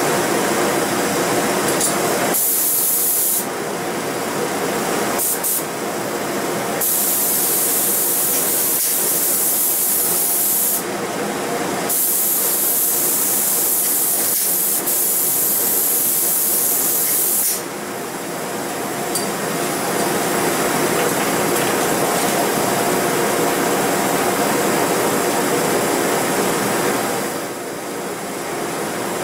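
Spray gun spraying wood finish (vinyl sealer or lacquer) in hissing passes: a one-second pass, a brief blip, then two long passes of about four and six seconds, stopping a little past halfway. A steady fan-like hum runs underneath.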